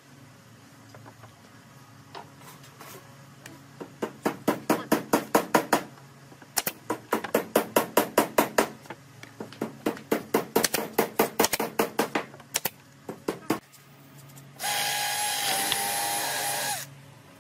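Pneumatic brad nailer firing nails into a wooden headboard board: several runs of sharp shots at about five a second. Near the end a cordless drill runs steadily for about two seconds, drilling into the board.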